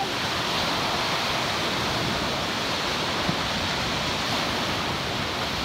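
Waves breaking on a Lake Huron sand beach: a loud, steady rush of surf with no let-up.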